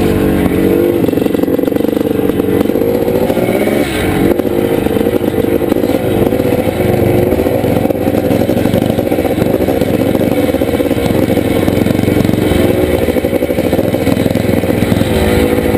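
1981 Can-Am MX-6B 400's single-cylinder two-stroke engine running hard under racing load, heard from on board the bike. Its pitch rises and falls with the throttle, with a brief drop in revs about four seconds in before it pulls again.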